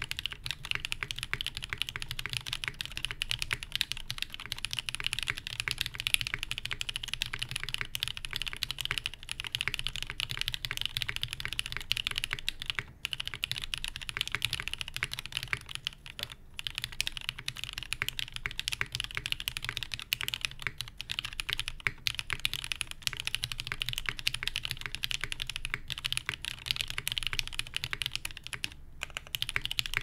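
Continuous fast typing on a Sessantacinque mechanical keyboard: top-mounted, with a polycarbonate plate, no dampening, broken-in NovelKeys Cream switches lubed with 205g0, and GMK Kaiju keycaps. A dense run of key clacks with a few brief pauses.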